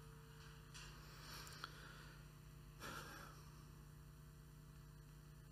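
Near silence: room tone with a low, steady hum.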